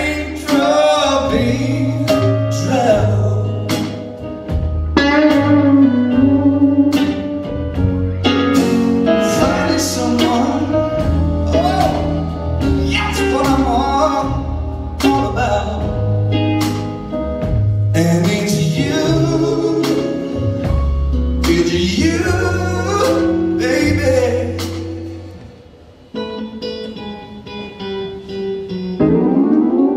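Live soul-blues band playing: drums, bass, electric guitar and keyboard under a male voice singing wordless, bending vocal lines. The music thins out for a moment near the end before building again.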